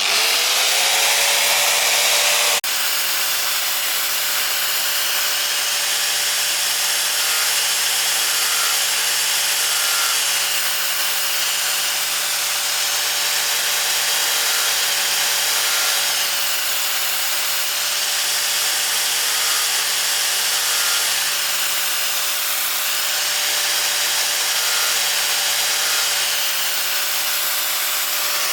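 A powered saw machine starts up: its motor spins up within the first second to a steady whine and then runs on evenly, with a loud hiss over it.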